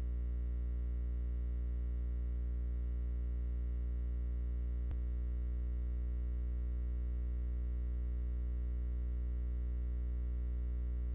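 Steady low electrical mains hum with a stack of overtones, unchanging throughout; a faint click about five seconds in.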